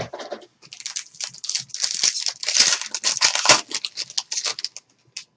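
Clear plastic wrapper being torn and crumpled off a pack of trading cards: irregular crinkling and crackling, loudest about halfway through and dying away just before the end.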